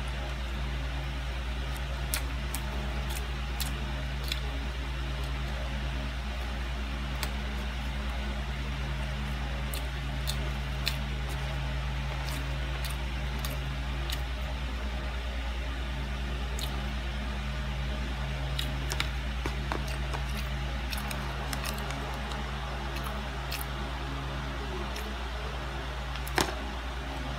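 Plastic fork and knife clicking and scraping against a pancake and its paper-lined tray, in scattered light ticks with one sharper click near the end, over a steady low machine hum.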